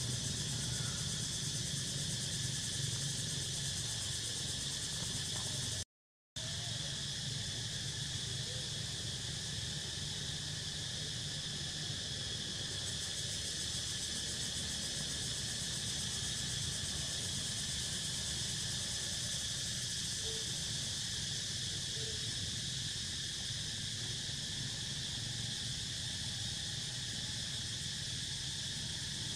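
Steady chorus of insects buzzing in several high-pitched bands, with a low rumble beneath. The sound cuts out completely for a moment about six seconds in.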